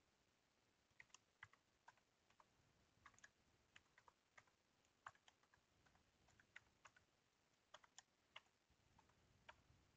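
Faint computer keyboard typing: irregular keystrokes, a few a second, starting about a second in, as a password is typed.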